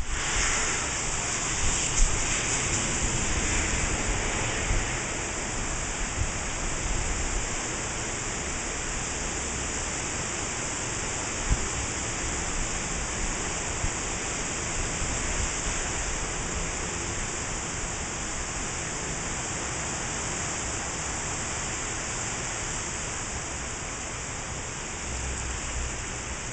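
Steady hiss of heavy tropical-storm rain, with gusting wind, and a few short low thumps scattered through it.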